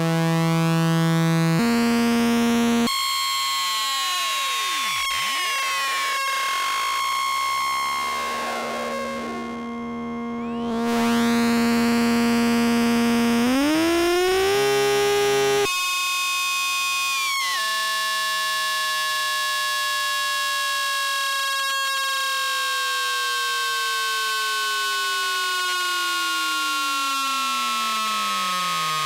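Flight of Harmony Infernal Noise Machine desktop analog synthesizer, self-patched, droning: a steady high tone over hiss, with other tones gliding slowly downward. The sound switches abruptly a few times as its knobs are turned.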